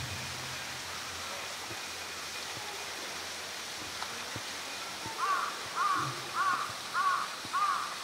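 A crow cawing five times in quick succession, about two caws a second, over a steady background hiss.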